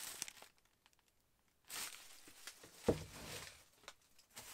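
Plastic wrap and paper rustling on a wrapped aerial firework shell as it is handled, in short bursts with pauses, and one dull thump about three seconds in.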